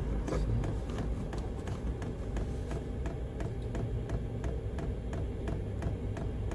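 Electric fuel dosing pump of a 5 kW Chinese diesel heater ticking in an even, rapid rhythm, several clicks a second, as it primes and draws diesel up the fuel line.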